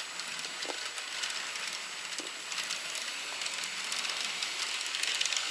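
Battery-powered NewRay RailRoadN N gauge train running on plastic track: the steady whirring rattle of its small motor and wheels, growing a little louder near the end.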